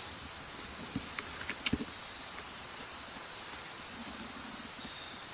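Steady high buzzing chorus of insects, with a few small clicks and knocks about a second to two seconds in.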